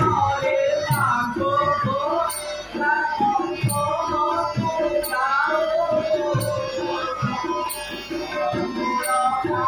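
Live devotional theatre music: a gliding melody over hand-drum strokes in a steady rhythm, with a sharp high tick about once a second.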